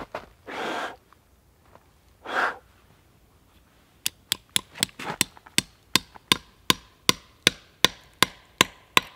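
Metal maple-sap spile being driven into the tap hole in a sugar maple's trunk with a knife. From about four seconds in it gives about eighteen sharp metallic taps, two or three a second, with a faint ring. Two short whooshing sounds come before the tapping starts.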